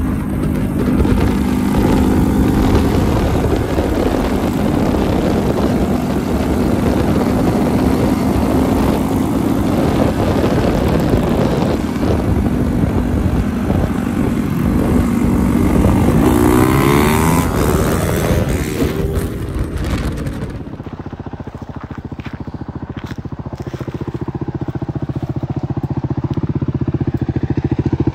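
Motorcycle engines running at road speed with wind noise on the microphone; about two-thirds of the way through, the pitch rises and falls through gear changes. After that the sound turns into a duller, steadier engine drone that swells until it cuts off at the end.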